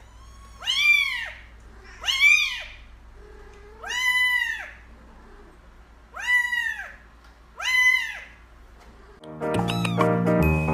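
A cat meowing five times, each meow rising and then falling in pitch, about a second and a half apart. Music starts near the end.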